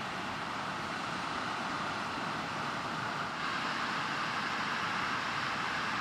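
Steady rushing noise of surf on the beach, getting a little louder about three and a half seconds in.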